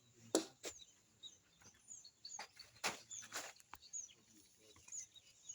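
Small birds chirping with short high calls, and a handful of sharp knocks or taps at irregular times, the loudest about half a second in and again near three seconds.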